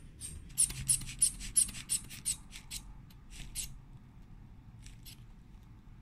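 Rubber inflation bulb of a Greetmed aneroid sphygmomanometer squeezed rapidly, a quick string of short puffs of air through its valve as the arm cuff is pumped up for a blood pressure reading. It pauses about four seconds in, then two more squeezes follow.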